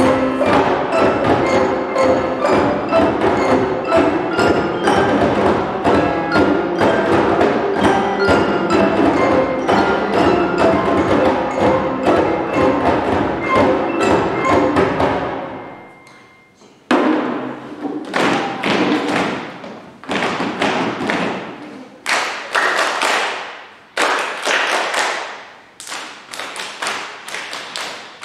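Children's percussion ensemble of djembe drums, wooden xylophones, acoustic guitars and keyboards playing a piece together. The music dies away a little past halfway. Then comes a series of separate sharp knocks, each ringing out briefly, about one a second.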